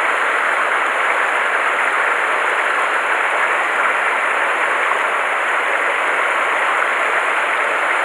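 Mountain stream rushing over rocks: a steady, unbroken rush of water.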